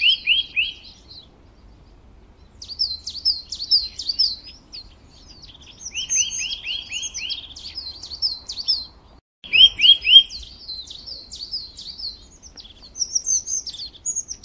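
Small birds chirping in repeated bursts of quick, high notes, with short pauses between the phrases.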